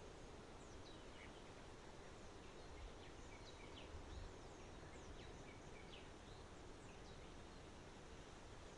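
Faint outdoor ambience: a steady background hiss and low rumble, with many short, high, downward-sliding chirps from small songbirds scattered throughout.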